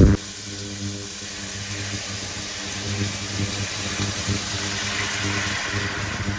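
Steady low mechanical hum with a hiss above it, opened by one sharp knock.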